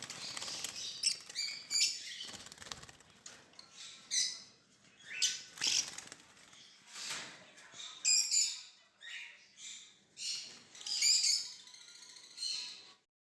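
Many caged lovebirds chirping in repeated high bursts, with wing flutters. The sound cuts off abruptly near the end.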